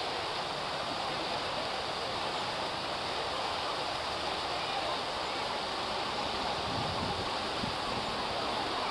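Fountain water jets arcing into a large pool, splashing steadily: an even, unbroken rush of falling water.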